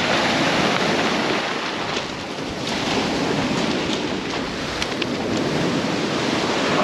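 Surf breaking and washing over a shingle beach, with wind buffeting the microphone. A few small clicks come about two to five seconds in.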